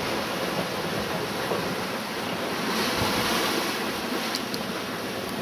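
Steady rush of wind and sea water aboard a sailing yacht under way, with wind buffeting the microphone. The hiss of the water swells a little about three seconds in.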